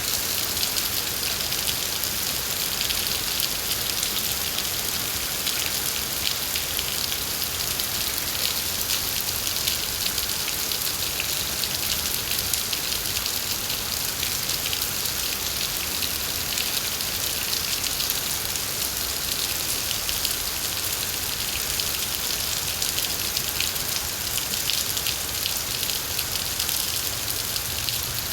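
Steady rainfall, a dense even patter of drops striking surfaces, heavy and unchanging.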